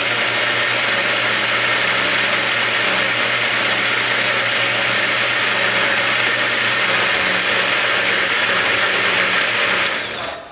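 Electric blender running steadily at high speed, emulsifying soy milk and sunflower oil into vegan mayonnaise, then switched off abruptly near the end.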